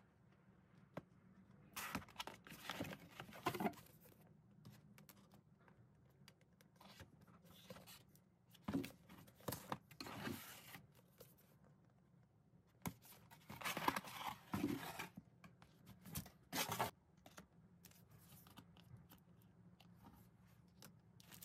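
Paperback books and cardboard packaging being handled and unpacked: several bursts of rustling, sliding and crinkling paper and card, with light taps in between.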